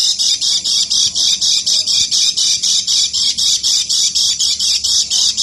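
Lemon-bellied white-eye (kecial kuning) singing its 'ngeker' chatter: a fast, unbroken run of high, repeated chirping notes, about seven a second.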